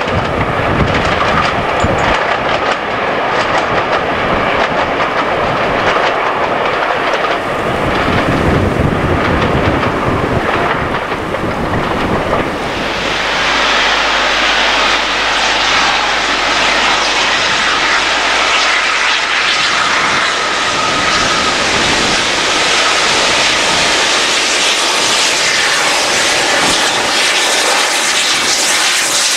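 Steam-hauled passenger train running: a deep, rumbling noise for the first half. About halfway in it gives way to a steady, hiss-heavy rush as LNER Thompson B1 4-6-0 No. 61264 comes closer, working its train.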